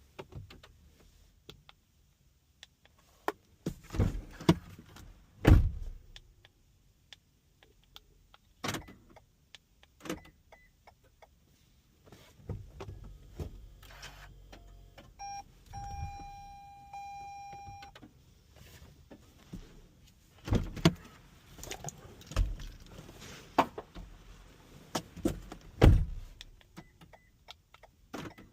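Toyota Sienna being worked while its newly programmed key is tested: several sharp clunks of doors and locks, and around the middle a motor running for several seconds with a steady beep sounding over it.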